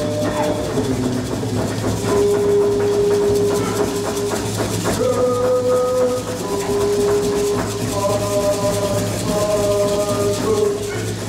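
Wooden ceremonial whistles blown in long, steady notes that step between a few pitches, several sounding together near the end, with hand rattles shaking underneath.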